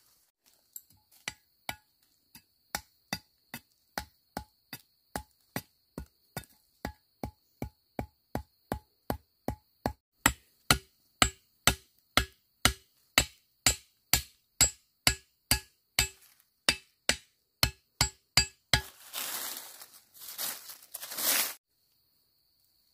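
A hand tool striking over and over at an even pace, about two and a half blows a second, the blows growing louder, stopping near the end and giving way to a few seconds of rustling.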